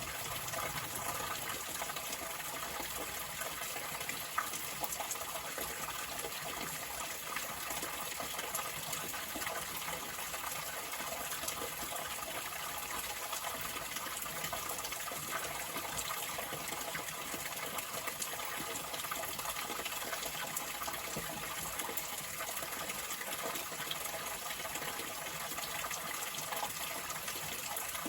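Water flowing continuously, a steady even wash of sound with little low rumble and no change in level.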